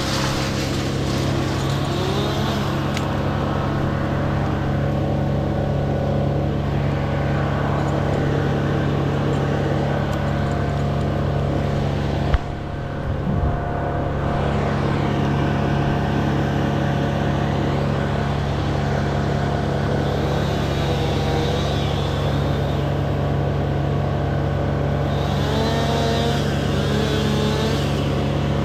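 Engine running steadily at a constant speed, with a brief drop and a sharp click about twelve seconds in.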